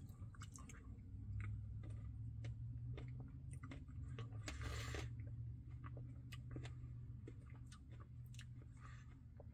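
Faint, close-miked sounds of eating a Dairy Queen Blizzard: scattered wet mouth clicks and smacks with soft chewing, over a steady low hum.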